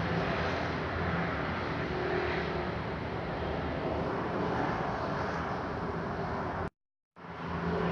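Pot of water with binahong leaves boiling on a stove burner: a steady rushing noise, broken by about half a second of silence near the end.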